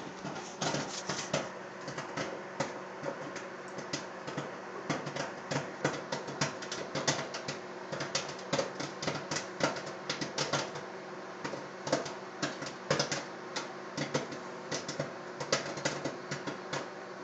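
Microwave popcorn popping: irregular sharp pops, several a second, over the steady hum of the running microwave oven.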